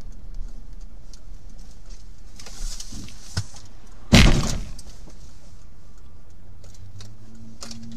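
A motorcycle crashes into the front of the car: one loud, sharp impact about four seconds in, fading out over about half a second. The car's engine and road noise run steadily underneath, with a few smaller knocks just before the crash.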